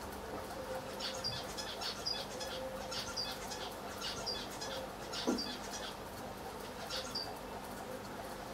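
Clusters of short, high chirps, like a small bird's, over a steady low hum, with a single click about five seconds in.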